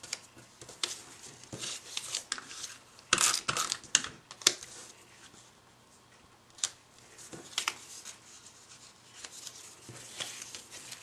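Cardstock and paper being handled on a tabletop: irregular taps, clicks and rustles, busiest about three to four seconds in.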